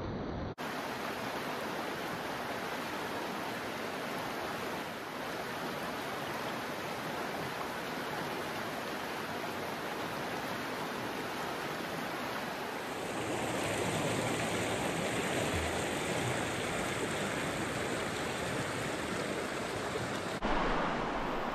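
Creek water rushing steadily. The sound grows somewhat louder a little past halfway and shifts abruptly near the start and near the end.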